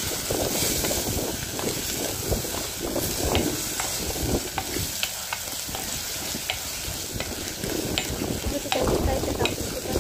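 Chicken pieces frying in masala in a black pan, sizzling while a spatula stirs them. The spatula clicks and scrapes against the pan many times.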